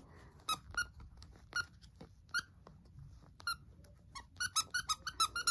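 Squeaker inside a plush teddy-bear dog toy being squeezed by hand: short high squeaks, a few scattered ones at first, then a quick run of them near the end.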